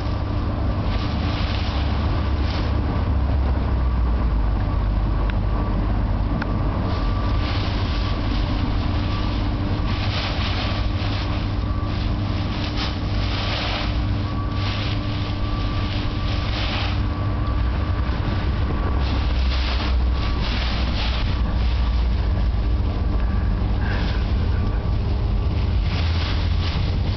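Dry leaves rustling in irregular bursts as a dog rolls and shifts in a pile of fallen autumn leaves, over a steady low rumble.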